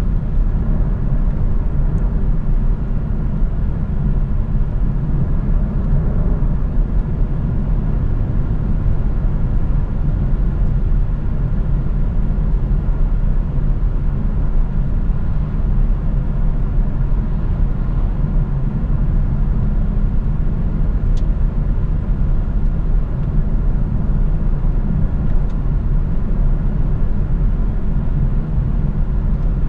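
Lexus LC 500 Convertible cruising steadily with the roof down, heard from the driver's seat: a steady low rumble of wind, tyre and engine noise with no revving.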